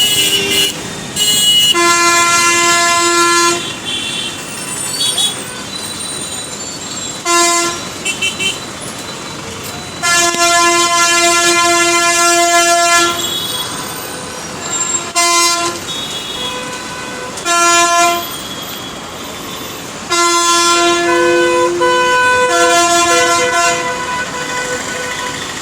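Vehicle horns honking again and again in road traffic, some in long blasts of two to three seconds and others short, over steady traffic noise; a second horn of a different pitch joins near the end.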